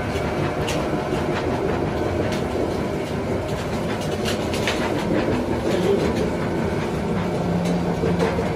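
Three-roll plate bending machine running, its motor-driven rollers turning and curling a steel plate, a steady mechanical rattle with scattered clanks and clicks.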